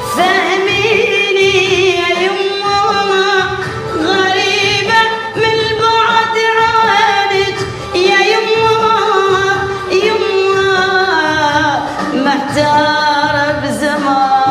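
A woman singing an Iraqi song with long, wavering held notes over a steady low percussion beat.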